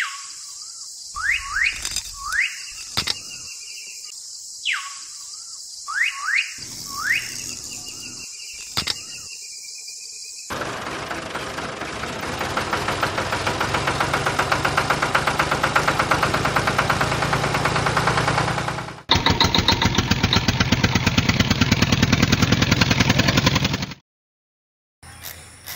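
A steady high hiss with several short rising squeaks. Then, from about ten seconds in, a motor runs with a fast, even pulse, growing louder, changes and grows louder again near nineteen seconds, and cuts off suddenly near the end.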